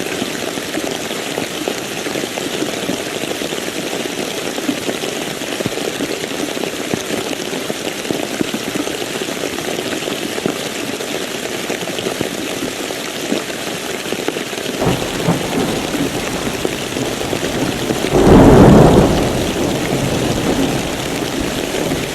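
Heavy rain falling steadily. About two-thirds of the way through, a low thunder rumble sets in, and near the end a loud thunderclap breaks and fades over a couple of seconds.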